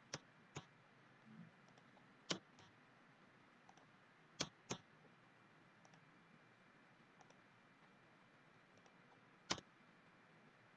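Computer mouse clicking, about six sharp clicks spread over ten seconds, two of them close together in the middle, over a faint steady hiss.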